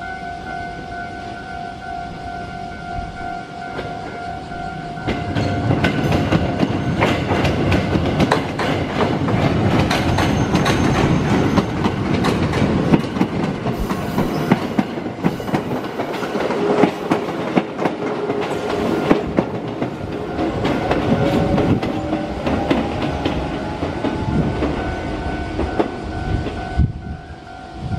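Orange Iyotetsu electric train passing close by, its wheels clattering in quick clicks over the diamond crossing and rail joints. A level-crossing warning bell rings steadily in a repeating tone throughout and stops near the end.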